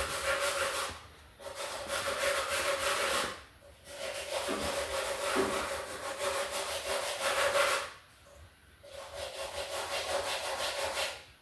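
Wire brush scrubbing corrosion off the tractor's lead battery terminals in four spells of quick back-and-forth strokes, with short pauses between them. A faint steady squeal-like note runs under the scraping.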